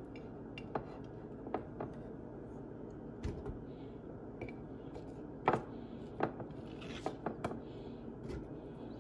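Irregular light knocks and clinks of a utensil and dishes as diced fruit is moved into a blender jar, the loudest knock about five and a half seconds in.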